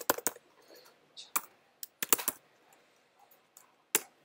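Typing on a MacBook laptop keyboard: a few short runs of keystrokes with pauses between them, and one sharp single keystroke near the end.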